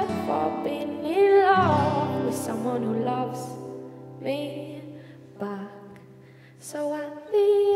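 A woman singing long, gliding held notes over two acoustic guitars. The music quietens in the middle and swells again near the end.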